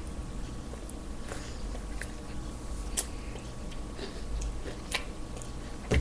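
Quiet chewing of a milk-dunked Oreo cookie, with a few soft clicks, the sharpest about halfway through.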